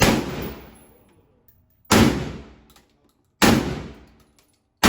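Four gunshots fired at a steady pace, about a second and a half apart, each followed by a fading echo.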